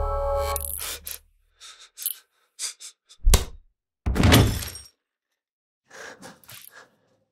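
Ambient synth music cuts off about half a second in, leaving a quiet room where a few soft knocks lead to a heavy thud about three seconds in. A longer noisy rush with a low rumble follows at once. A few faint short sounds come near the end.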